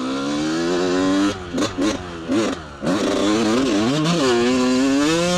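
2003 Kawasaki KX125's 125cc two-stroke engine revving. The pitch climbs over the first second, then several quick throttle blips rise and fall, then it climbs again and holds high for the second half.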